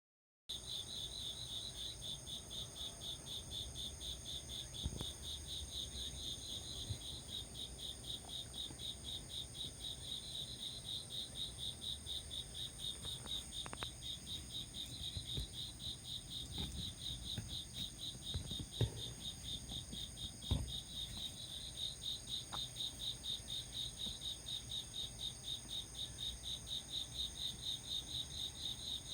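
Crickets chirping in a steady, even rhythm of a few chirps a second, over a continuous high trill, with a few soft knocks in the middle.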